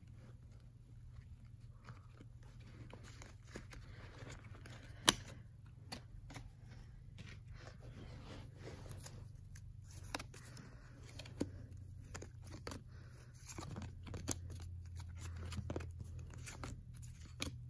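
Baseball cards being handled: cardstock rustling and sliding as the cards are gathered into a stack and thumbed through, with scattered sharp clicks and one much louder snap about five seconds in. A steady low hum runs underneath.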